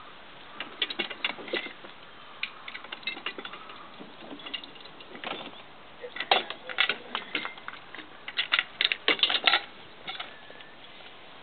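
Metal harness trace chains and hardware clinking and rattling in irregular clusters of sharp clicks as a draft horse is hitched to a wooden sled. The busiest, loudest rattling comes in the second half.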